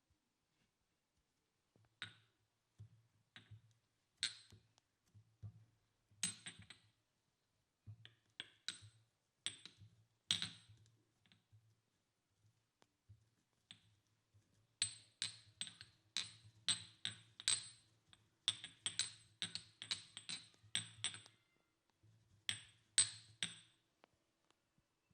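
Sharp, ringing clinks of a utensil striking a small metal or glass bowl while camphor oil is mixed. They come irregularly, often two or three a second, with a lull in the middle and a busy run of strokes in the second half.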